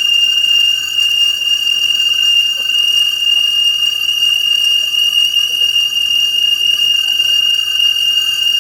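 Metal lathe turning a flange, giving off a loud, steady high-pitched whine.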